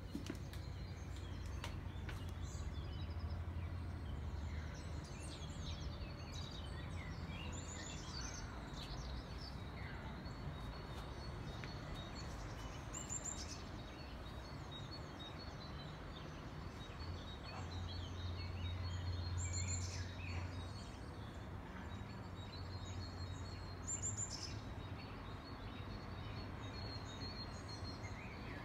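Outdoor birdsong: several birds chirping, one repeating a short high phrase about every five seconds, over a steady low rumble.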